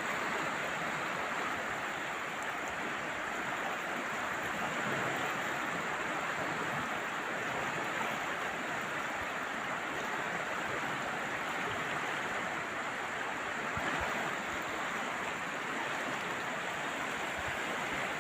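The Loire's current flowing: a steady, even sound of moving river water.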